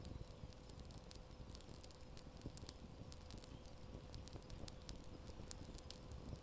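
Wood campfire crackling: frequent small snaps and pops over a low, steady rumble, with a faint steady hum underneath.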